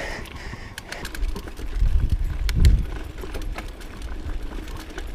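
Mountain bike moving along a dirt trail: low wind rumble on the action-camera microphone, strongest about two seconds in, with scattered sharp clicks and crunches.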